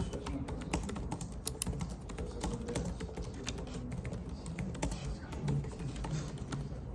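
Fingers typing quickly on an HP laptop's keyboard: an irregular run of key clicks.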